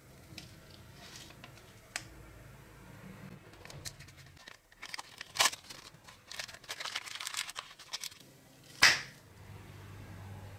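Paper and masking tape handled while a bicycle bell's metal base is wrapped for masking: crinkling and rustling, with tape being torn and pressed down, and one loud sharp crackle about nine seconds in.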